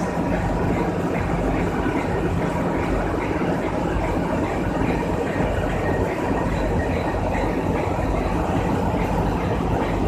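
Industrial machinery of a running web-handling line, making a steady drone with a faint regular ticking.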